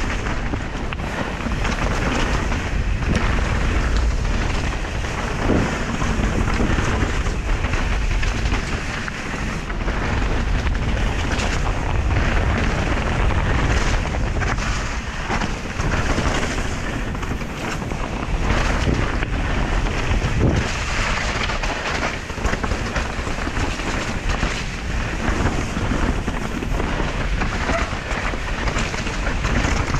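Mountain bike riding fast down a wet, rocky dirt trail: steady wind rush over the action camera's microphone, with the tyres rolling over dirt and rocks and frequent short knocks and rattles as the bike hits bumps.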